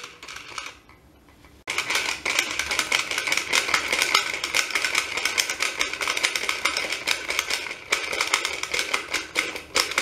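Plastic toy washing machine's side crank being turned, its gears clicking and rattling fast and steadily as the drum spins, mixing juice powder into water. The clicking starts about two seconds in.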